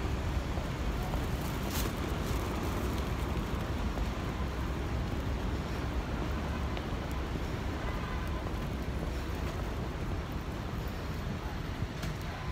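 Steady city street traffic noise, with a low rumble of wind on the microphone.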